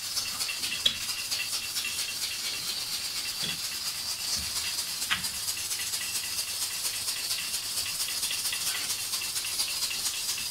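Roti cooking on a hot iron tawa: a steady crackling hiss of fine rapid ticks, with a light knock about a second in and another around five seconds in.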